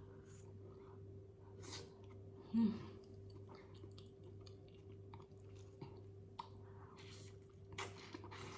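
A person chewing food from a seafood boil close to the microphone, with small wet clicks and crunches. A steady low hum runs underneath, and one brief louder sound comes about two and a half seconds in.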